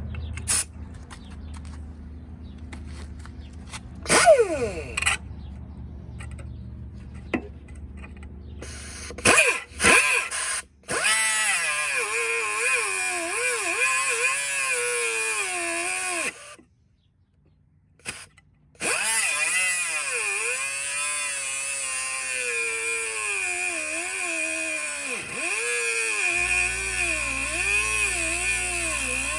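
Handheld electric power tool running on the steel mower deck, its motor pitch wavering and dipping as it loads up against the work. It stops briefly partway through, then starts again; before it starts there are a few clicks and knocks.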